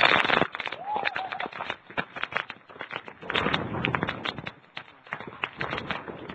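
Typhoon wind gusting against a cellphone microphone, with rain and a dense crackle of clicks and rattles that swells and fades in surges. A short pitched tone sounds about a second in.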